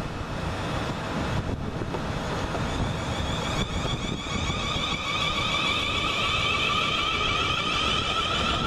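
Class 450 Desiro electric multiple unit pulling out of a station, with a rumble of wheels on rail. A steady electric traction whine comes in about three to four seconds in and grows louder as the train picks up speed.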